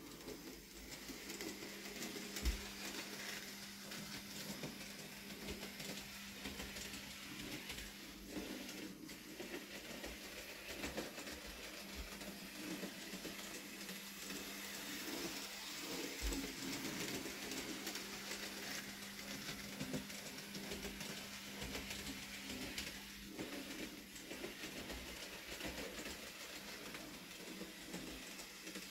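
Bachmann Rheneas narrow-gauge model locomotive running on its track: a steady hum from its small electric motor, with a few light clicks scattered through.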